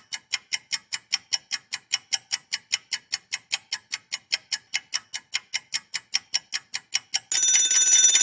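A clock ticking quickly and evenly, about five ticks a second, then an alarm clock bell starts ringing about seven seconds in and keeps ringing.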